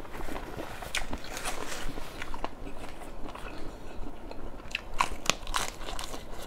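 A person chewing a mouthful of food close to the microphone, with wet, irregular crunches. Sharper crisp crunches come about five seconds in as a lettuce-wrapped bite goes into the mouth.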